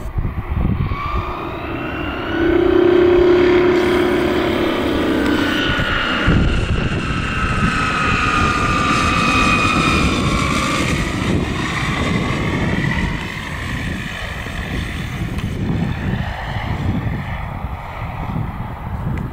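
Propeller engine of an Ikarus C22 ultralight aircraft flying past overhead, its engine note rising and then falling in pitch as it passes. In the last several seconds it runs quieter and rougher as the plane comes down low to land.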